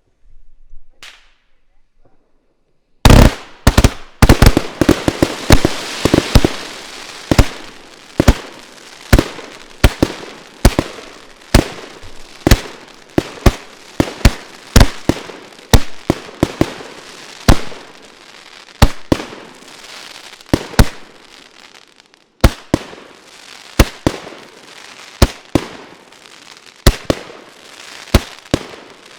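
Yalta firework cake, a 49-shot battery, firing: after about three quiet seconds, loud launch thumps go off rapidly, a little more than one a second, with crackling and bursts in between. About 22 seconds in the shots pause briefly, then resume.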